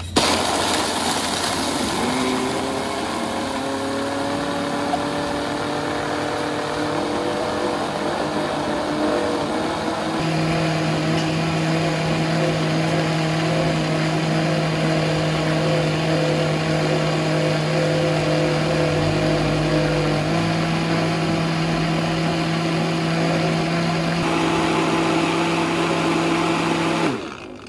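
Countertop blender running at high speed, crushing ice with coconut and milk into a smoothie. The motor whine rises in pitch over the first few seconds as the ice breaks up, then runs steadily until it cuts off near the end.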